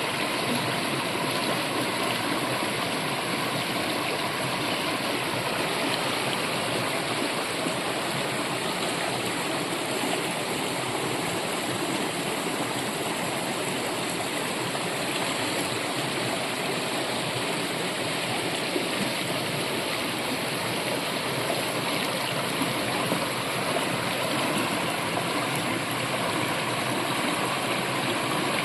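Brook running steadily: an even, unchanging rush of flowing water.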